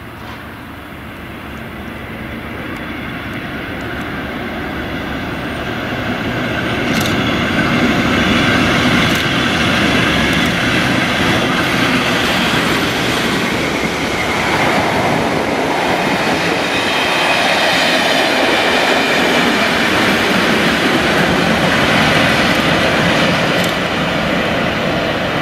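Colas Rail Class 37 diesel locomotives, English Electric V12-engined, hauling a test train past the platform. The engine noise and wheels on rail build over the first several seconds as the leading loco approaches, then hold steady as it and the coaches pass. A few sharp clicks come from the wheels over the rails.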